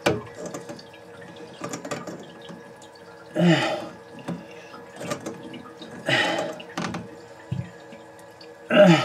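Water squirting and dripping from a toilet's angle-stop shutoff valve that will not shut off all the way, with sharp metal clicks of pliers working the valve. A person's voice sounds briefly three times, short effortful noises rather than words.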